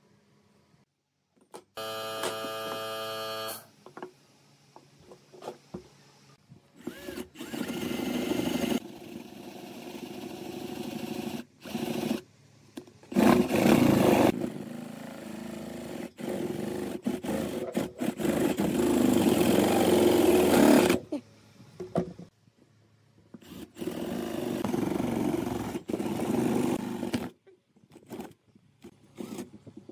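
Electric drill with a large flat wood-boring bit cutting into a pine board, running in a series of bursts of a few seconds with short pauses between them. The longest, loudest run comes a little past the middle.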